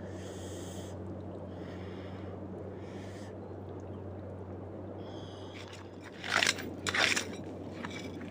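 Scraping and rustling from a hand digging at a mud crab's burrow under tree roots, over a steady low background noise. Two sharp, loud scrapes come about six and seven seconds in.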